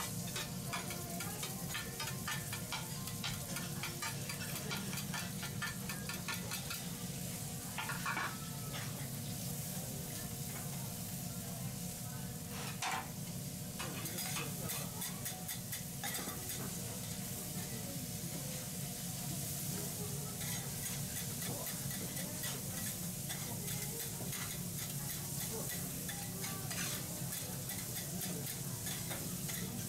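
Food sizzling on a hot teppanyaki iron griddle, with metal spatulas clicking and scraping on the plate throughout and two louder clacks, about eight and thirteen seconds in.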